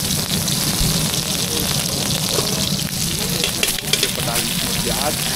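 Food sizzling on a street-food stall's grill: a steady, even hiss, with faint voices in the background.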